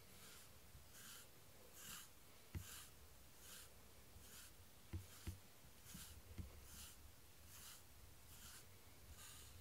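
Faint, even, scratchy strokes of a pet brush through a cat's coat, a little faster than one a second, with a few soft low thumps.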